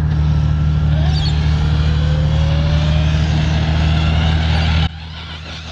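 Arrma Kraton 6S RC truck being driven: a faint rising electric motor whine over a loud, steady low rumble. The sound drops off sharply near the end.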